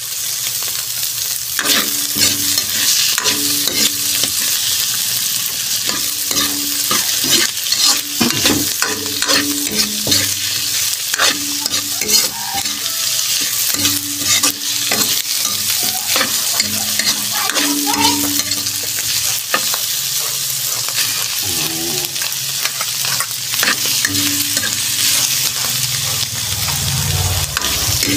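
Abalone, spider conch and small cuttlefish sizzling in hot oil in a wok, stirred and turned with a metal spatula that scrapes and clanks against the pan again and again.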